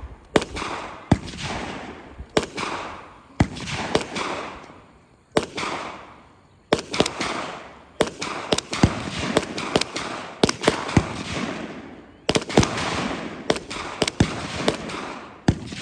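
Gunshots, single reports at irregular intervals, each with a long echoing tail; they come closer together in the second half, at times two or three within a second.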